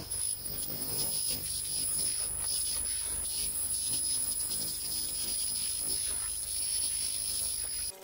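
Handheld pulsed laser cleaner ablating rust from steel: a steady high-pitched whine over a dense crackle, cutting off near the end.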